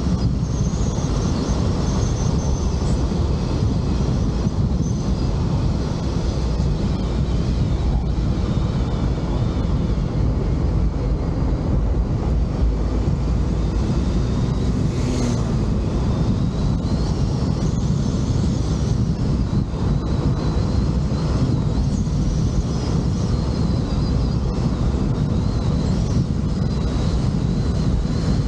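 Steady rush of wind on the microphone over the road and engine noise of a moving vehicle, with a faint wavering high whine.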